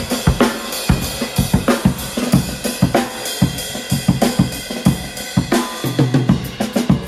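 Acoustic drum kit being played in a busy pattern of snare, kick drum, hi-hat and cymbal hits, as the kit is tried out for miking.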